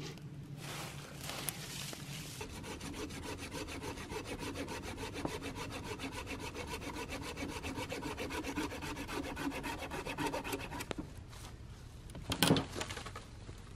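Small hand saw cutting through a dead tree branch in quick, even strokes. The sawing stops, and a couple of louder knocks follow near the end.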